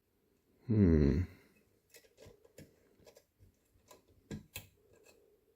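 Small metal clicks and taps as a padlock is handled and re-clamped in a vise, about a dozen scattered over the last three and a half seconds. They follow a short, loud rising tone about a second in.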